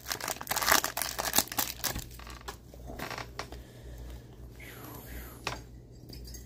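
Foil wrapper of a hockey card pack crinkling and tearing as it is ripped open and crumpled by hand, dense crackling for about the first two seconds. After that, only soft rustles and light ticks as the stack of cards is handled.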